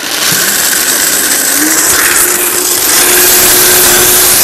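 High-speed countertop blender running flat out with water in the jar, a loud whirring rush. Its motor pitch climbs a little about a second and a half in, then holds steady.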